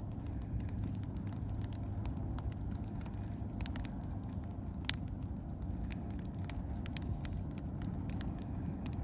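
Fire crackling as an American flag burns: irregular sharp pops and snaps, one louder snap about five seconds in, over a steady low rumble.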